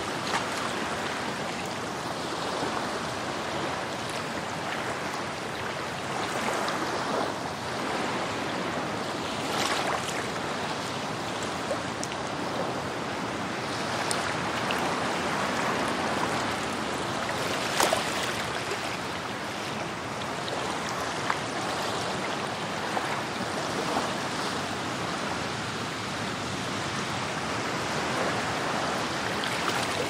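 Ocean surf: waves washing in a continuous steady rush of water, swelling and easing gently, with a few brief sharper spikes of spray, the sharpest a little past halfway.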